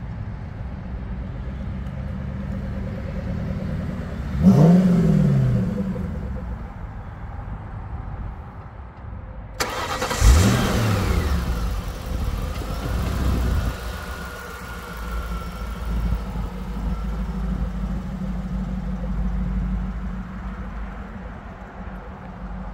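1996 Mustang SVT Cobra's 4.6-litre V8 through a Bassani exhaust, the car driving by with one rev that rises and falls about four seconds in. After a sudden change of sound about ten seconds in, the engine idles with a sharp throttle blip followed by a few lighter revs.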